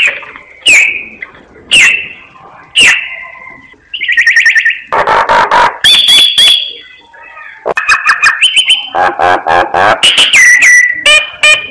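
A myna singing. It opens with four loud, sharp whistled calls about a second apart, each sweeping down in pitch. About four seconds in it breaks into a fast, varied run of whistles, rattles and harsh chattering notes.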